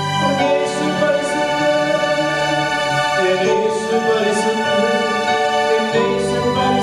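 Slow worship music: sustained electric keyboard chords that change every few seconds, with a voice singing over them and a few light tambourine jingles.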